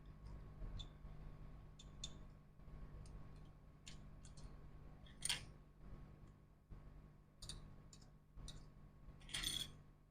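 Light scattered clicks and taps of small tools and parts being handled at a repair bench, with two louder brief scraping rustles, one about halfway and one near the end, over a faint steady hum.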